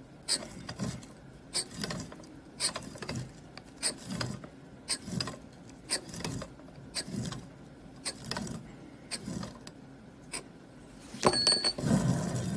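Steel scriber scratching lines into a blackened metal plate clamped in a brass holder: short scrapes and clicks, often in pairs, about every half second as the holder is turned between strokes. From about eleven seconds in, the holder is spun, making a louder, longer rattle with a faint ring.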